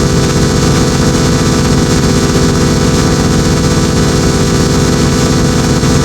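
A loud, dense, steady wall of layered electronic sound: many sustained tones stacked over a noisy haze, unchanging throughout.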